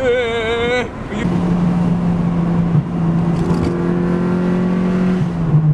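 Honda Civic's four-cylinder engine pulling hard at high revs, its exhaust going through a muffler patched with Flex Tape and Flex Seal. It holds a steady high note, then drops in pitch at an upshift near the end. A brief wavering vocal whoop at the start.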